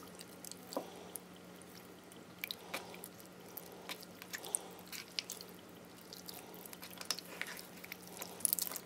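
Purple slime being squeezed, kneaded and pulled apart by hand: faint, irregular wet squelches and small sticky pops, busier near the end.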